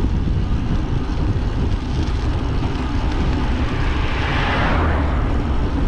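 Wind buffeting the microphone on a moving ride, with a vehicle passing close by, swelling and fading about four to five seconds in.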